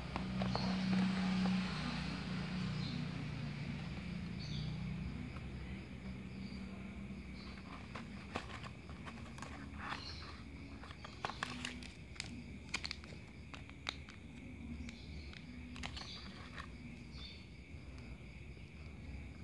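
Cardboard smartphone box being unpacked by hand: a rustling slide as the inner box comes out of its sleeve, then light taps and clicks of card flaps and paper leaflets being handled.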